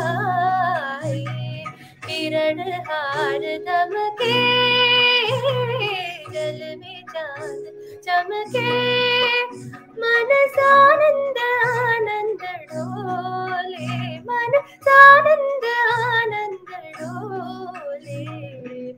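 A young woman singing solo, a raga-based Indian film song that passes from one raga to another, with ornamented runs and two long held notes, about four and nine seconds in, over a quiet steady accompaniment.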